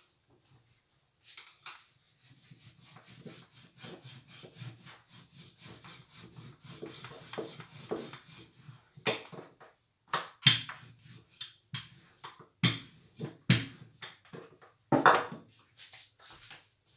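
Wooden rolling pin working paratha dough on a board: a run of quick, even rolling strokes, then about five sharp wooden knocks in the second half.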